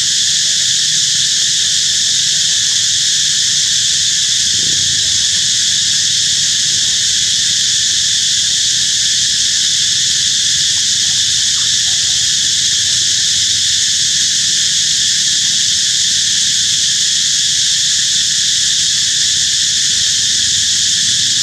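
Steady, loud chorus of insects: a continuous high-pitched buzz that holds unchanged throughout.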